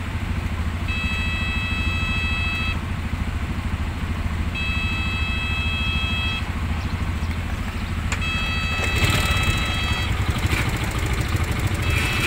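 Level-crossing warning alarm sounding a steady multi-tone note in long on-off pulses, about one every four seconds, over the low steady rumble of a passing freight train and idling motorbikes. About nine seconds in, a louder rush of noise comes as the end of the train goes by.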